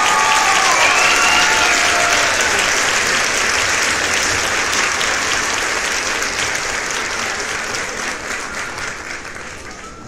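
Crowd applause with a few cheers in the first couple of seconds, the clapping fading slowly away toward the end.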